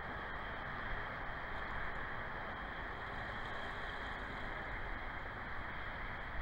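Steady rushing noise of wind and water, even throughout with no distinct events.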